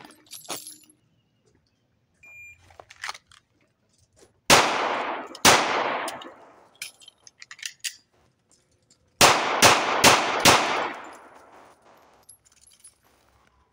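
A short electronic shot-timer beep, then two CZ P01 9mm pistol shots about a second apart, a pause of several seconds for a slide-lock emergency reload, and four quicker shots, each shot trailing off in an echo. This is the FAST drill: two headshots, reload, four to the body.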